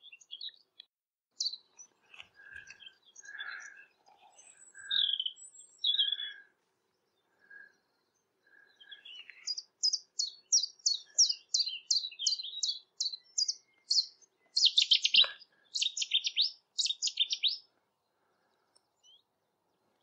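Common chiffchaff singing its repeated chiff-chaff notes, about three a second, through the middle, with scattered notes from other birds before it. Near the end comes a louder, abrupt burst of song, Cetti's warbler.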